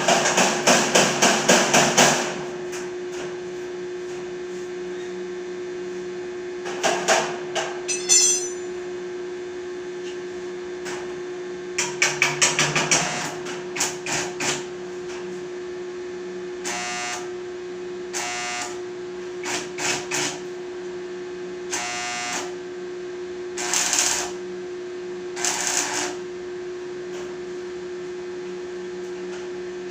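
Hammer blows on metal: a fast run of strikes at the start and another about twelve seconds in, with scattered single knocks and short ringing hits in between, over a steady electrical hum.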